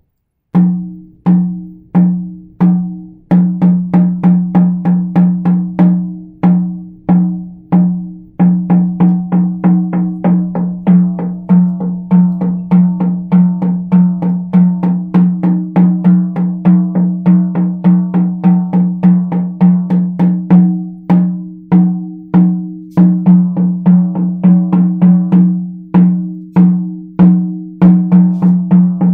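A 14-inch calfskin frame drum struck over and over with a soft ball-headed sound-healing beater. Each stroke gives a deep, ringing tone that carries into the next. The beats start slow, a little more than one a second, and about four seconds in pick up to a quicker, uneven rhythm.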